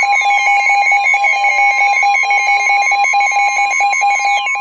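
Emergency Alert System attention signal: two steady tones sounding together as a loud, harsh alarm. Several falling whistle-like glides sweep down through it.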